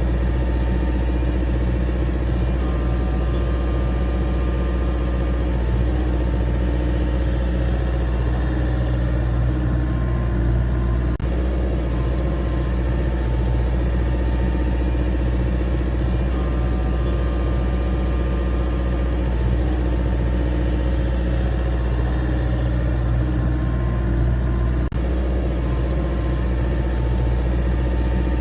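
Engine running steadily at idle with a deep, even rumble, broken by two brief clicks, one about eleven seconds in and one near the end.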